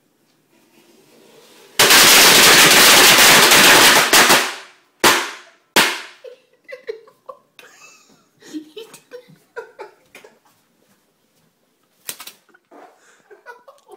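A string of about 70 Black Cat firecrackers going off in a rapid, continuous crackle for about two and a half seconds. It ends with two separate loud bangs, and a last crack comes about twelve seconds in.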